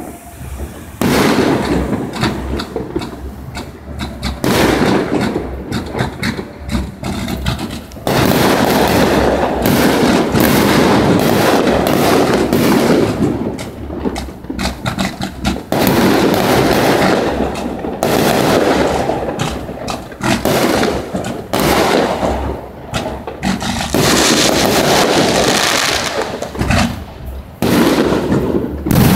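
Aerial fireworks going off in a long run of bangs. Several stretches of a few seconds each are packed with rapid bursts.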